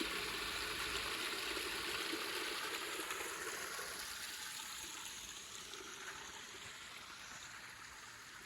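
Small mountain stream running steadily, growing fainter toward the end.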